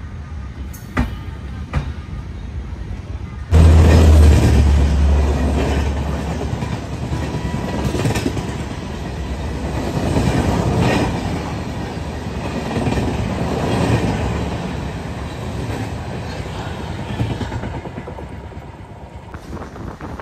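Passenger train running on the rails, heard from an open coach doorway: wheels clattering over the track with the rush of air past the door. About three and a half seconds in, the sound jumps suddenly louder with a deep rumble, then swells and fades as the train gathers speed.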